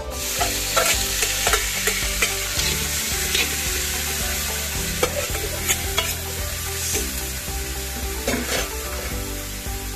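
Chicken and vegetables sizzling as they are stir-fried in hot oil. The sizzle starts suddenly, as the food goes into the pan, and a spatula knocks against the pan now and then.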